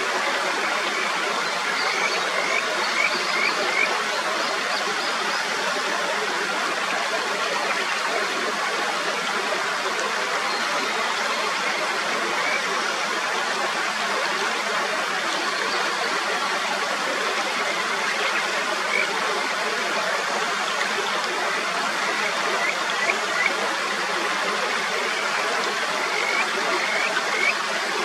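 Mountain stream running steadily. Short runs of high, rising calls from kajika frogs come a couple of seconds in and again near the end.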